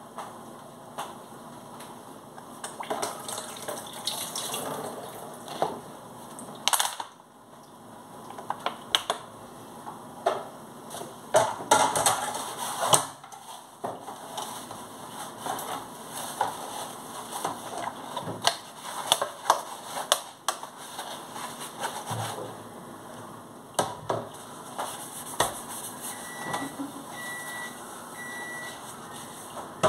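Dishes being washed by hand in a stainless steel sink: water running with frequent clinks and knocks of dishes and a pan being handled. Near the end, three short beeps.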